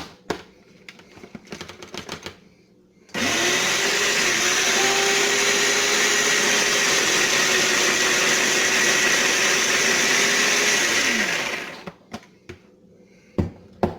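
Small electric food processor motor running for about eight seconds, chopping fresh parsley into an onion and garlic mix. It spins up about three seconds in and winds down near the end. Light clicks and knocks come before and after it.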